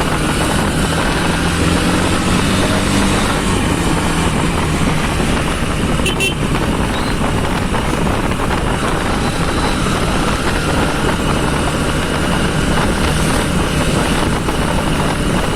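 Honda SP 125's single-cylinder engine running under acceleration while the motorcycle is ridden on the road, mixed with steady wind rush over the microphone.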